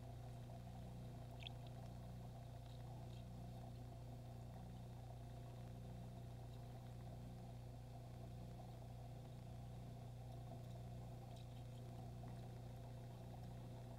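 Aquarium equipment humming faintly and steadily, with a soft water wash and one small tick about a second and a half in.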